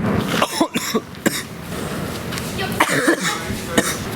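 A person coughing and clearing their throat in short harsh bursts, with other voices around.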